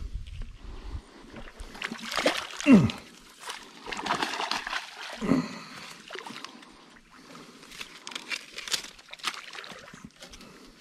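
A hooked metre-long barramundi thrashing and splashing at the water's surface in irregular bursts, heaviest in the first half. About three seconds in comes a short falling cry, the loudest sound here, and a weaker one follows about two seconds later.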